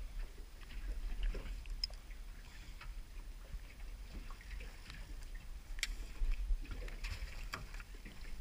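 Water lapping against the hull of a small aluminium boat at sea, under a steady low rumble, with a few sharp clicks and knocks scattered through.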